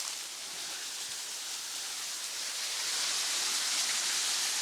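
Rushing water of a stepped river cascade, a steady hiss that grows louder a little past halfway through.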